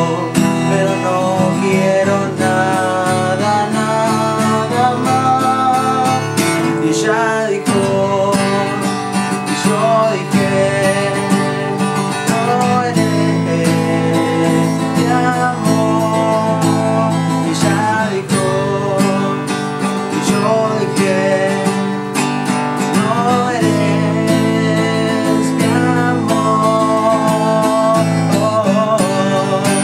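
Acoustic guitar strummed in a steady rhythm, with a young man singing along over the chords.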